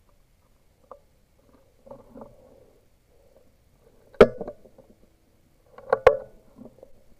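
PCP air rifle firing a single shot about four seconds in: one sharp, loud crack. About two seconds later comes a second quick pair of sharp clacks, nearly as loud.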